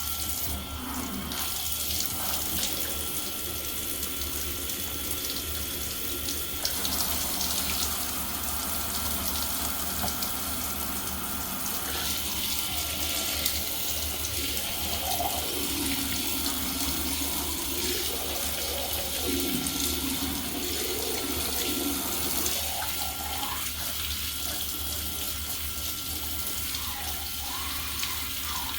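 Bathtub faucet running steadily, the water splashing over a dirty Shark Rotator vacuum filter held under it to rinse out the dirt, the splashing shifting as the filter is moved.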